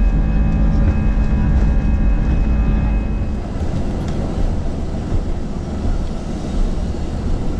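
Jet airliner cabin noise on the ground: a loud deep rumble of engines and wheels, with steady whining engine tones over it that fade out about three and a half seconds in, leaving a lower rumble as the plane rolls on.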